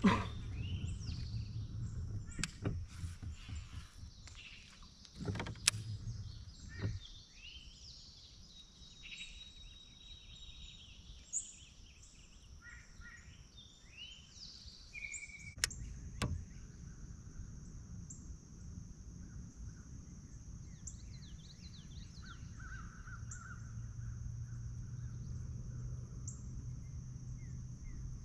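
Wild birds calling and chirping from the lakeside woods, including crow-like caws, with a few sharp clicks in the first half. From about halfway on, a steady high-pitched drone runs under the birdsong.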